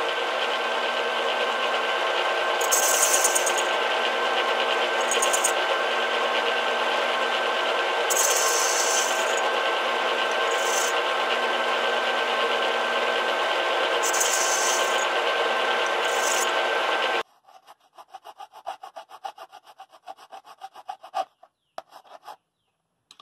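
Metal lathe running steadily with a motor whine as the cutting tool faces a ledge off a metal lens filter adapter ring, with brief brighter bursts of cutting noise every couple of seconds. It cuts off suddenly about 17 seconds in, and a hand file then rasps across the ring in quick short strokes, with a couple of clicks near the end.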